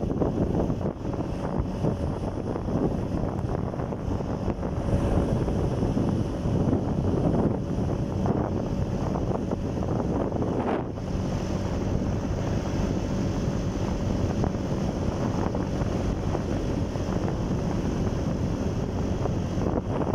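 Wind buffeting the microphone of a moving motorcycle, with the steady drone of its engine underneath at an even speed.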